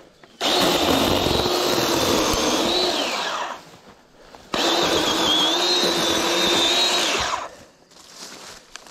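Chainsaw running at speed while cutting brush, in two runs of about three seconds each with a short pause between them.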